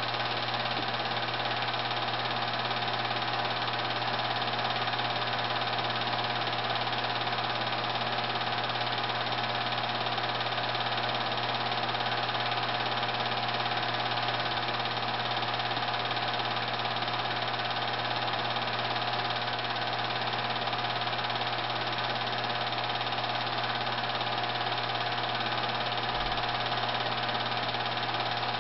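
Film projector running: a steady mechanical hum that does not change.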